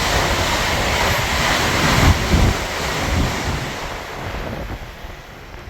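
A train passing through at speed on the express line: a loud rushing noise with low rumble that fades away over the last couple of seconds, with wind buffeting the microphone.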